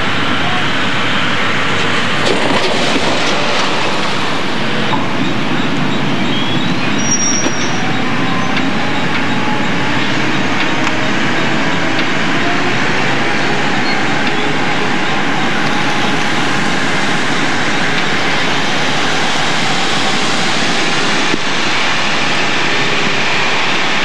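British Rail Class 08 diesel shunter, with its English Electric six-cylinder engine, running steadily as it moves slowly past hauling wagons, their wheels rolling on the rails.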